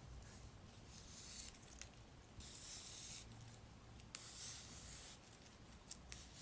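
Pull-bow ribbon being drawn up into a pompon, its pull strings sliding through the tape. It makes faint rustling, scraping hisses in three bursts, with a few light clicks.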